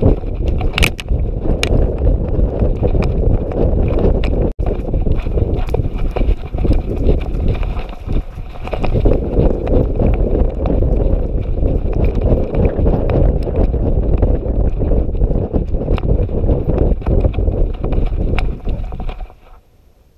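Dog running with a GoPro strapped to her harness: steady thudding of her strides and the harness jostling against the camera housing, with a brief lull about eight seconds in. The noise drops away sharply just before the end.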